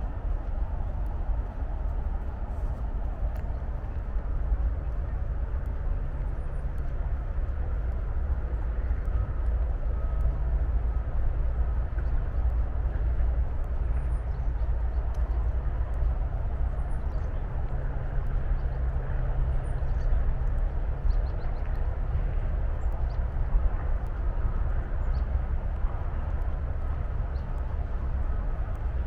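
Steady low rumble of distant highway and city traffic, with a few faint, high bird chirps over it.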